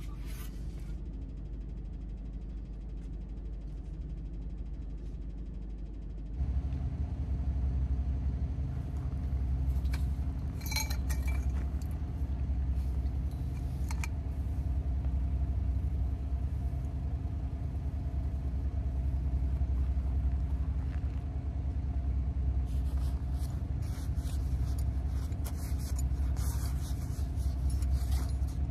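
A steady low rumble that grows louder about six seconds in, with light metallic clinks and rattles of tent poles and rope being handled, a few in the middle and many more near the end.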